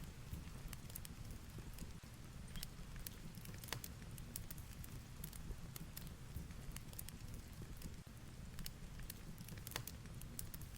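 Fireplace crackling with irregular sharp pops over a steady low rumble and hiss of heavy rain.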